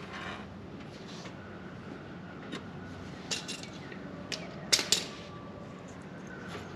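Light metallic clicks and taps of small parts being handled as a throttle cable is fitted to a mower engine's carburetor linkage, a few scattered, the loudest a quick pair just before the five-second mark, over a steady low hum.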